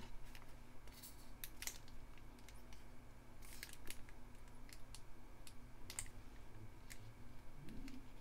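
Light paper rustles and small clicks of cut paper flowers and leaves being handled and laid onto a card on a tabletop, in scattered short bursts.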